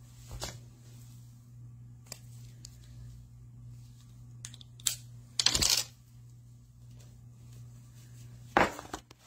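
Hands handling small cosmetic items such as a lipstick tube: scattered light clicks, with a louder rustle about five and a half seconds in and another near the end, over a steady low hum.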